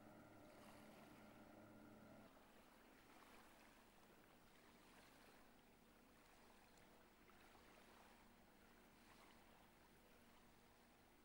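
Faint steady hum of a motorboat engine that cuts off abruptly a couple of seconds in, leaving only faint hiss.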